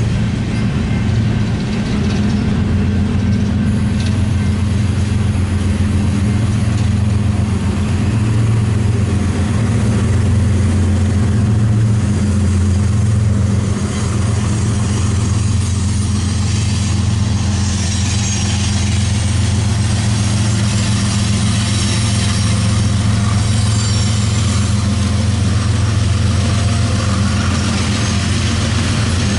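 Two BNSF freight trains rolling past each other, an empty coal train of hopper cars and a double-stack intermodal train: a loud, steady low rumble of rolling cars with a steady diesel engine hum.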